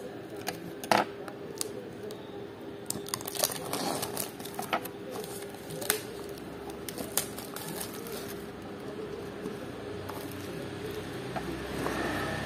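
Clear plastic shrink wrap on a smartphone box crackling and crinkling as fingers peel it off, with sharp clicks and taps against the cardboard. The crackles come thickly at first and thin out after about seven seconds, leaving handling rustle and a steady low hum.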